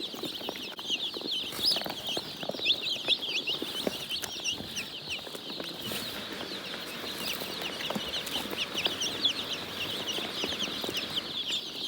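A flock of young chicks cheeping nonstop, many short high-pitched peeps overlapping.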